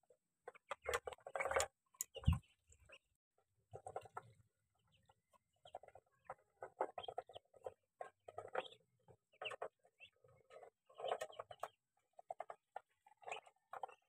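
Farm poultry making short, soft clucking calls in bursts about every second, with a few sharp clicks in the first couple of seconds.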